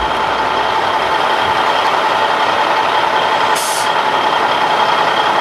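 Side-lift container truck running: a steady mechanical noise with a steady high whine, and a brief hiss of air about three and a half seconds in.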